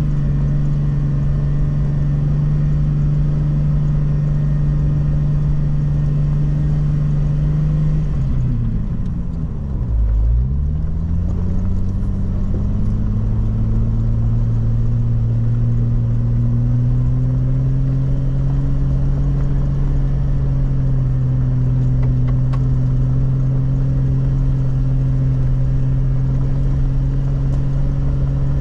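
Jeep Wrangler LJ's engine running steadily on the trail. About nine seconds in the revs drop sharply, then climb back up and hold a little lower than before.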